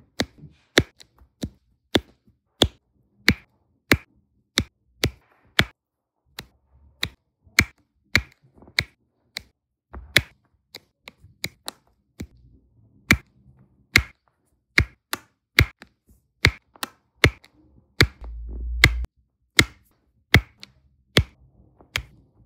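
Diamond-painting drill pen pressing resin drills onto the sticky canvas one by one, each placement a sharp click, about one and a half a second in a steady rhythm. A brief low rumble comes about three-quarters of the way through.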